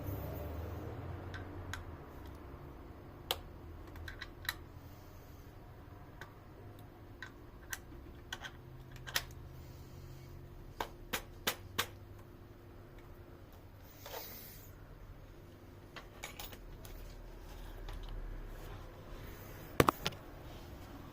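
Scattered sharp clicks and knocks, one every second or so, with the loudest pair near the end, from parts and tools being handled during work on a Baikal five-shot rifle.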